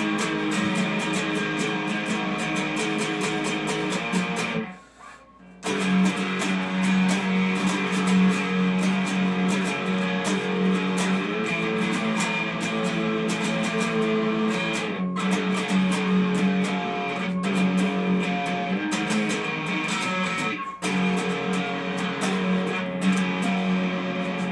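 A Telecaster-style electric guitar played by a beginner: fast punk-rock riffs and chords. The playing stops for about a second around five seconds in, then carries on without a break apart from a few tiny gaps.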